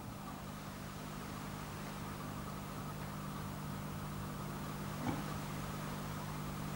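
Steady low hum over a faint hiss: quiet room tone, with one faint short sound about five seconds in.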